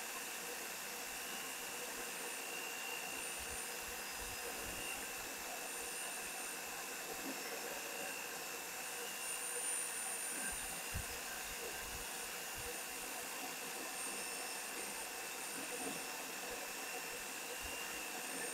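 Home-made boring tool running steadily, its cutter taking metal out of a Honda Dio scooter crankcase, with a thin high whine over a steady machine noise.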